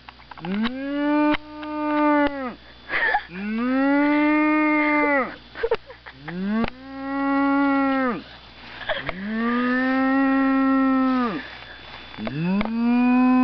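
A man imitating a cow's moo to call a herd of cattle: five long, drawn-out moos one after another, each rising at the start, held level and dropping away at the end, the last cut off at the close.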